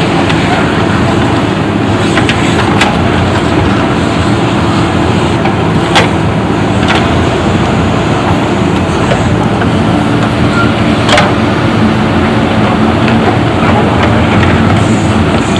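Backhoe loader's diesel engine running steadily under load while loading gravel into a tipper truck, with a few sharp metallic knocks scattered through.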